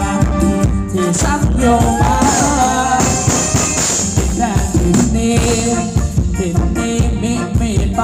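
Live Thai ramwong dance band music with a quick, steady drum beat and a gliding melody line over it.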